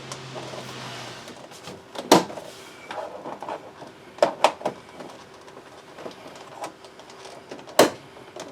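Small plastic trim panels on a GMC Yukon door being pried off by hand, their clips snapping loose in sharp clicks. The loudest snap comes about two seconds in, two more close together around four and a half seconds, and another near the end.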